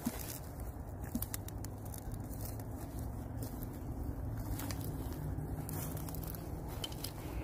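Faint outdoor ambience: a low steady rumble of distant road traffic, with scattered light clicks and crackles of footsteps on the woodland floor.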